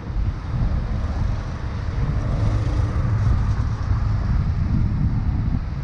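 Wind buffeting the microphone of a camera on a moving bicycle, with car traffic on the street going by.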